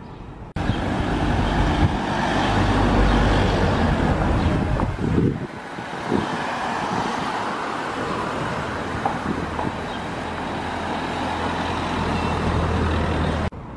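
Road traffic on a town street: cars driving past close by, engine and tyre noise, cutting in suddenly about half a second in. After a brief lull in the middle, a steady low engine hum continues.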